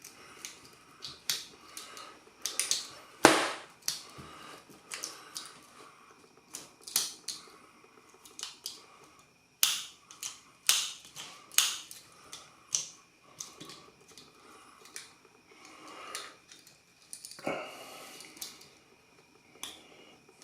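Victorinox Swiss Army knife blades and tools being opened and snapped shut one after another, giving a string of sharp metal clicks and snaps at irregular intervals. The joints are freshly lubricated, and the springs snap the tools home the way they are supposed to sound.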